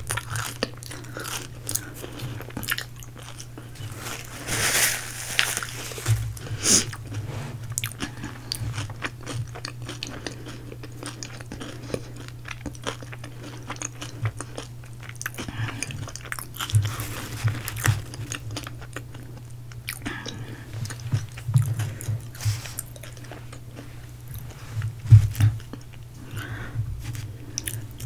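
Close-miked eating: biting into and chewing crispy fried food, with crunches and mouth sounds coming irregularly and a few louder bites. A steady low hum runs underneath.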